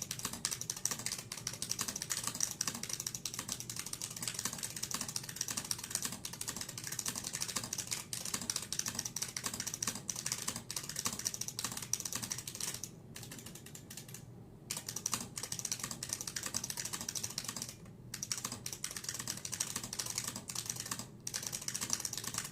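IBM Model F AT keyboard with capacitive buckling-spring switches being typed on, a dense, fast stream of sharp key clacks broken by a few short pauses.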